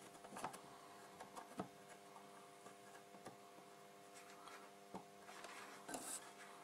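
Near silence: a steady faint hum with a few soft, scattered ticks as a soldering iron tip works a solder joint on a circuit board.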